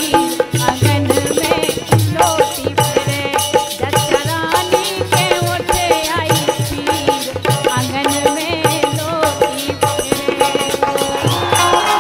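Bundeli folk music: fast hand-drum and rattle percussion under a wavering melody line, with a held high note coming in near the end.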